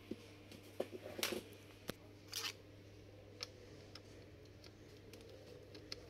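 A handful of light clicks and knocks, most of them in the first three and a half seconds, from a Dell Latitude E6440 laptop and its removed battery being handled on a desk, over a faint steady low hum.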